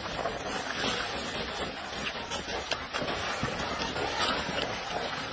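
Dried corn kernels rustling and clicking as a troop of macaques scrabbles through a pile of them with their hands. It makes a steady, crackly patter of many small clicks.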